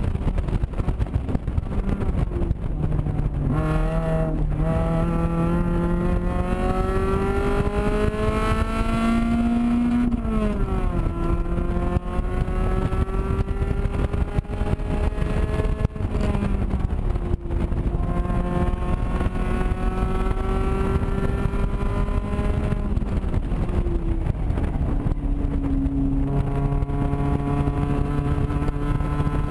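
Honda CRX engine heard from inside the cabin while lapping a track under hard driving. Its pitch climbs steadily under throttle and drops sharply three times, with road and wind noise underneath.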